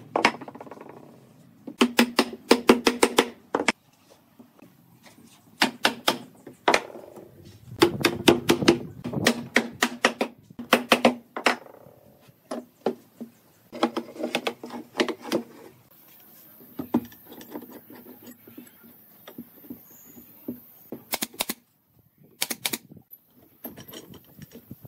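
Wooden mallet knocking glued pine joints together, in quick runs of sharp taps with short pauses between them.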